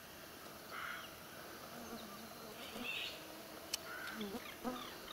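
Faint outdoor ambience with scattered short bird calls, some gliding up or down in pitch, and one sharp click near the middle.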